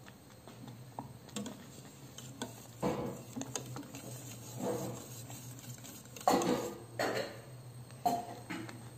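Wire whisk stirring custard in a stainless steel saucepan, its wires clinking and scraping against the pan in irregular strokes, the loudest about six seconds in.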